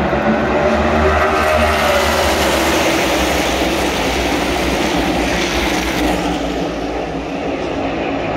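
A pack of NASCAR Cup Series stock cars passing the grandstand at full racing speed, their V8 engines making a dense wall of sound, with the pitch falling as the cars go by. It eases a little near the end as the field moves off into the turn.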